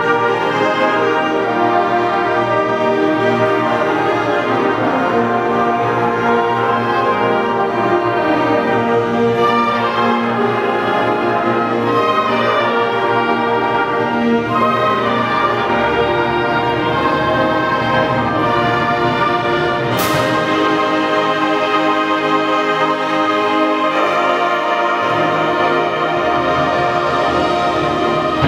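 Concert band playing sustained full chords with the brass prominent, and a sharp percussion stroke about twenty seconds in.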